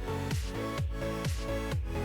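Electronic dance background music with a steady, thumping kick-drum beat.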